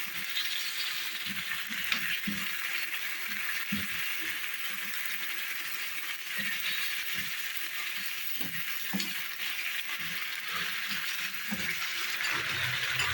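Mutton sizzling in ghee with garlic-ginger paste and blended onion, a steady hiss as its water cooks off, with scattered clinks of a spoon against the pot.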